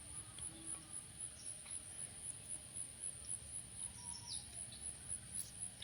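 Faint rural outdoor ambience: a steady, high insect drone with a few faint bird chirps.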